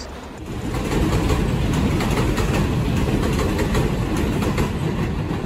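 New York City subway train running along the rails: a loud, steady rumble with rapid wheel clicks over the rail joints, growing louder about half a second in.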